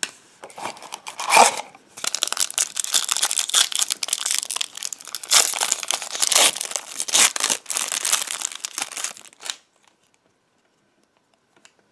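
A 2014-15 O-Pee-Chee Platinum hockey card pack being torn open by hand, its wrapper crinkling and crackling without a break for several seconds before it stops near the end.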